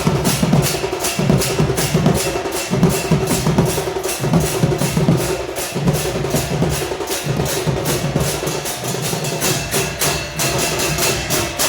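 Ghanta badya band playing: bell-metal gongs struck in a fast, even rhythm of about five strokes a second over a pulsing drum beat.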